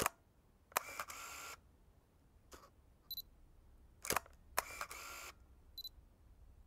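Vintage camera shutter clicking, each release followed within about half a second by another click and a short motor whir of about three quarters of a second; the cycle comes twice, with a faint short high beep between the cycles.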